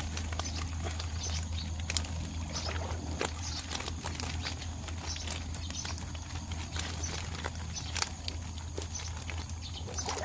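Live catfish and snakeskin gouramis flapping inside a wire-mesh fish trap held out of the water, making scattered light taps and patters against the mesh.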